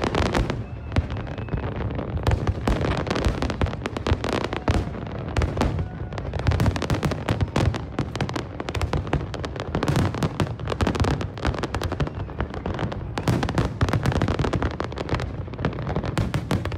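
Fireworks display: a dense, continuous barrage of rapid bangs and crackles.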